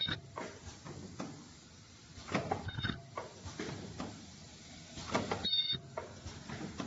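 Automatic soft-tube filling and sealing machine running, with a cluster of clunks and short air hisses from its pneumatic cylinders repeating about every three seconds over a steady hum.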